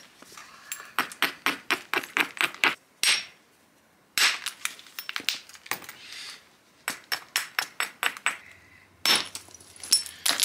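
Hammerstone striking a basalt axe-head blank, knocking flakes off it: sharp, clinking stone-on-stone taps in four quick runs of several blows each, with short pauses between runs.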